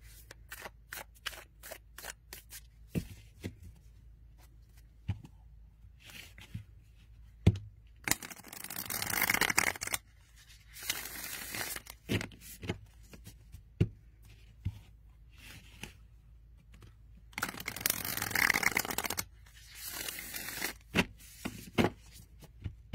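Thin, matte tarot cards being shuffled by hand. There are scattered light clicks and taps as the deck is split and squared, and three rasping riffle runs, the first two lasting about two seconds each.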